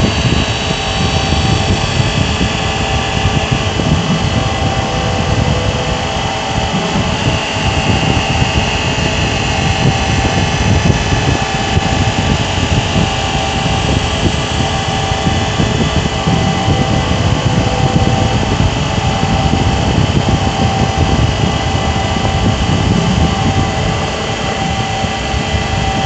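Spiral slotting machine running steadily: its spindle motor whines at a constant pitch over a dense mechanical running noise as the small end mill cuts a spiral slot into a rotating metal tube.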